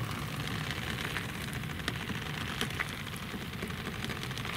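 Sukiyaki broth simmering in an aluminium foil pan over a gas camp stove: a steady bubbling crackle over a low rumble, with a few light clicks near the middle.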